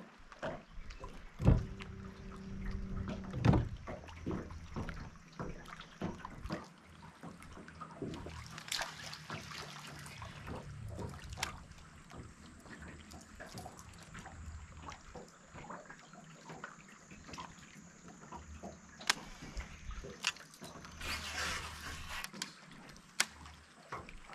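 Water lapping and dripping around a small boat, with two sharp knocks about a second and a half and three and a half seconds in.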